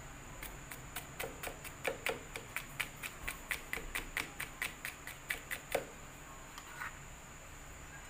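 Chef's knife chopping garlic on a plastic cutting board: a quick, even run of knocks about four to five a second that stops after about six seconds, followed by a couple of lighter taps.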